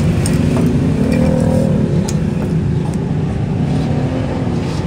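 Loud, steady low rumble of a motor vehicle engine running.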